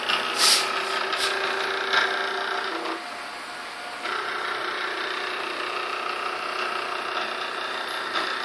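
Stepper motors of a simple homemade CNC machine whining at a steady pitch as they drive the axes, with a louder clatter about half a second in. The whine stops for about a second a few seconds in, then starts again as the next move begins.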